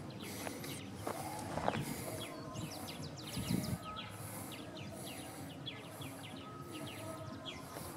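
Small birds chirping, a busy run of short quick calls, over a high insect buzz that pulses a little less than twice a second. A brief low sound comes about three and a half seconds in.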